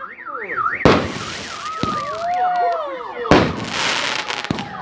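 Consumer firework battery (SU-100 salute) firing, with two loud bangs, about a second in and past the three-second mark, each followed by crackling and whistling. A car alarm's warbling siren rises and falls before the first bang.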